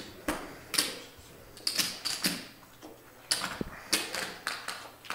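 Clay poker chips clicking against each other as they are handled and stacked, in a dozen or so irregular sharp clicks, some in quick runs.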